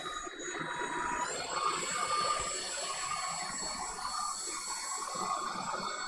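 Buture JR400 cordless stick vacuum's motor running with a steady high whine over airflow hiss, not very loud. About a second in, the whine steps up in pitch as it is switched to its highest suction setting.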